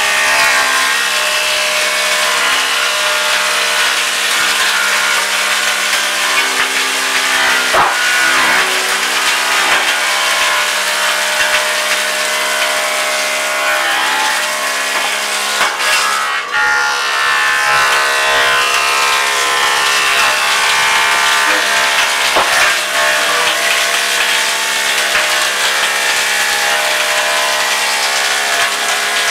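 Industrial wood planing machine running steadily as timber beams are fed through it, its cutter heads shaving the wood, with a few sharp knocks.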